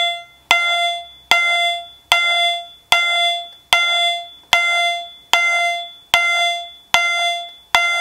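Faraday 5394 electronic chime/strobe fire-alarm signal sounding its continuous chime: a sharp, very aggressive chime note struck about every 0.8 seconds, each note dying away quickly before the next.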